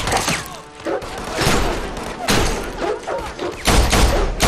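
Handgun shots fired in an irregular series with sharp thuds and impacts between them; the shots come thickest near the end.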